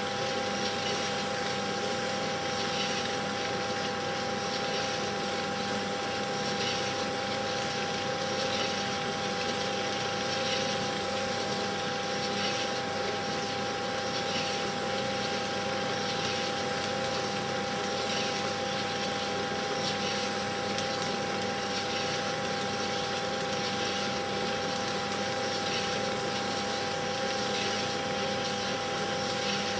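Cine film projector running: a steady mechanical whirr and hiss with a constant high hum.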